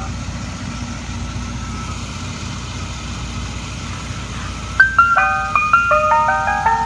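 Ice cream truck's electronic chime music box playing its jingle through the roof speaker. The melody pauses, then starts again with bright stepping notes about five seconds in. A low steady rumble from the idling truck runs underneath.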